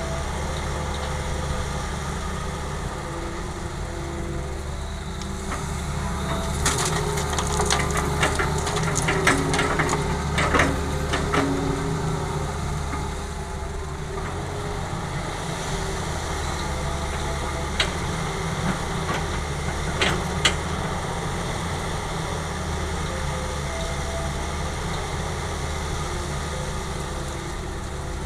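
Heavy diesel machinery running steadily while an excavator loads rocky soil. From about 6 to 12 seconds in, stones and earth clatter and knock in a burst, and two single sharp knocks follow later.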